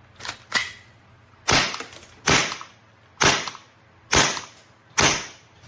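Gas airsoft pistol firing: two light clicks, then five sharp shots about one a second, showing the gun now shoots BBs after being loaded correctly.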